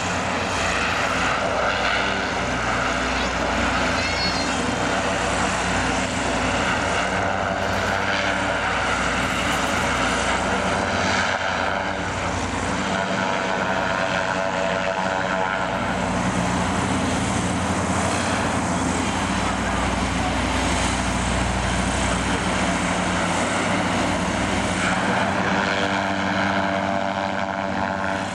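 Zeppelin NT airship's piston engines and propellers running steadily as the airship hovers low on its landing approach.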